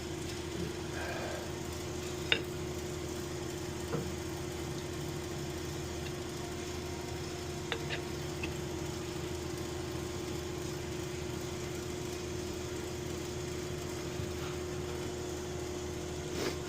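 Steady machinery hum with one even tone, broken by a few sharp clicks from work on the pump's coupling, about two, four and eight seconds in.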